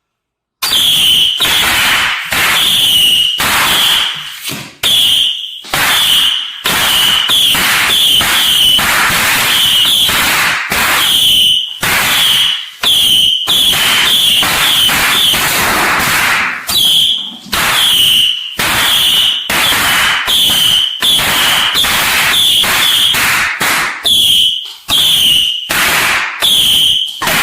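Fireworks going off in rapid succession, a dense string of loud bangs and crackles, about one to two a second, cutting in suddenly just under a second in.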